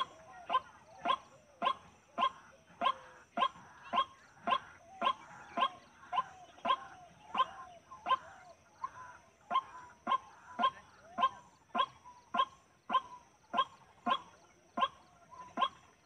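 White-breasted waterhen (dahuk) calling: one short, sharp note repeated evenly about twice a second, with fainter lower sliding notes between the calls. A faint steady high whine sits behind it.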